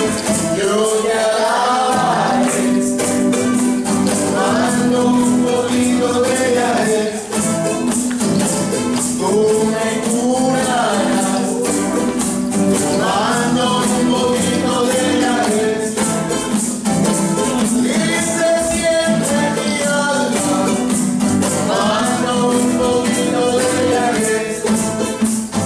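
Live kirtan chanting in a reggae style: a sung devotional chant over strummed acoustic guitars, with a shaker keeping a steady rhythm.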